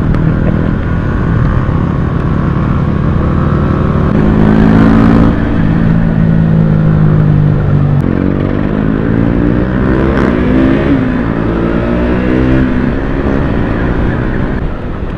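Sport motorcycles with loud aftermarket exhausts riding hard together. The engine note holds high and steady, drops about eight seconds in, then climbs again as they accelerate, with several engines overlapping.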